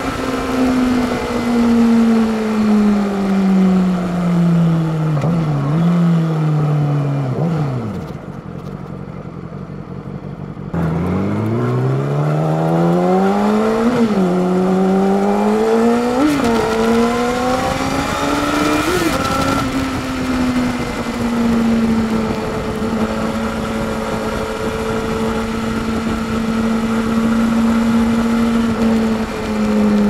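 Yamaha YZF-R6 (RJ11) inline-four sportbike engine with wind rush: the revs fall steadily for about eight seconds as it slows, sit low and quieter for a few seconds, then climb hard through three quick upshifts and settle into a steady cruise.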